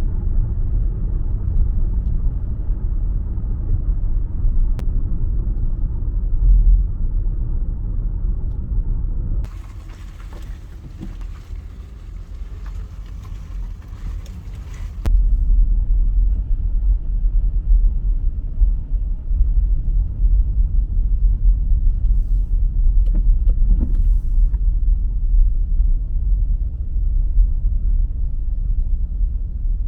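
Steady low road rumble of a car being driven. About ten seconds in it drops for some five seconds to a quieter, thinner hiss, then the rumble comes back suddenly.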